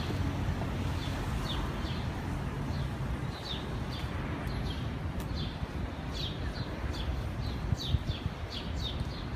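Small birds chirping: short, quick falling chirps, coming more often in the second half, over a steady low rumble.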